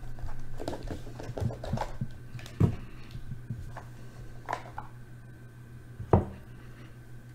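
Handling noises as a trading card box is opened: light rustles and clicks, with two sharper knocks about two and a half and six seconds in, over a steady low electrical hum.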